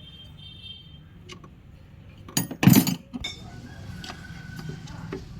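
Metal clinking and a short loud clatter about two and a half seconds in, like tools or small metal parts knocking together or being set down, with a few lighter clicks around it.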